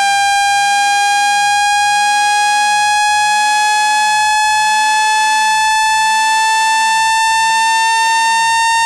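Synthesized speaker-cleaning tone: one buzzy electronic tone with strong overtones, gliding slowly upward in pitch at a constant loudness. It is played at high volume to vibrate dust out of a phone speaker grille.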